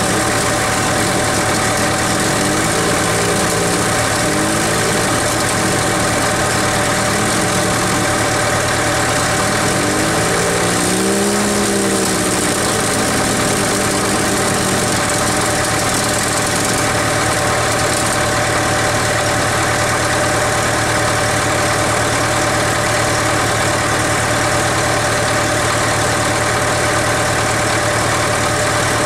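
Caterpillar D4C crawler dozer's diesel engine running steadily at an even, unchanging speed.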